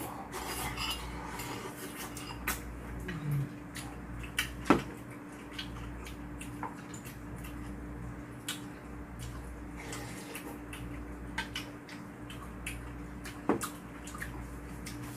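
Metal spoons clinking and scraping against ceramic soup bowls as two people eat, a scatter of small clicks with a few sharper ones, the loudest about five seconds in and again near the end. A steady low hum runs underneath.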